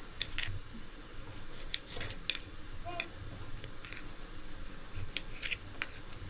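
Scattered light clicks and taps, about a dozen at irregular intervals, over a faint steady low hum.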